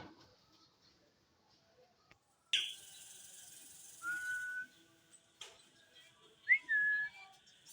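A parrot whistling: a brief falling call about two and a half seconds in, a clear steady whistle a little later, then a quick rising note followed by a held note near the end.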